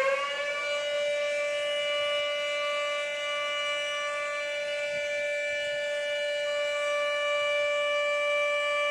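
Flood warning siren sounding: its pitch finishes a quick rise at the very start, then holds as one steady, unbroken tone with strong overtones.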